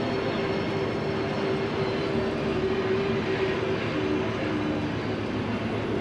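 A vehicle running steadily: engine drone over road noise, its pitch dropping slightly about four seconds in.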